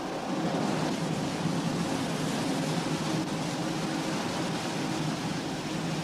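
Printing-works machinery running: a steady mechanical hum with a noisy rush over it, growing a little louder just after the start.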